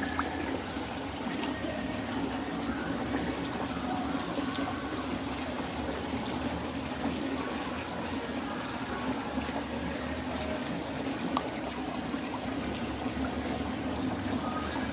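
Carp slurping and gulping at the pond's surface: a steady watery splashing with a few faint sharp pops scattered through.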